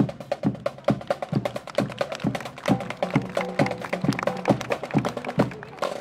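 Marching band drumline playing a percussion-only cadence: steady low drum beats about twice a second with quick, sharp strokes in between.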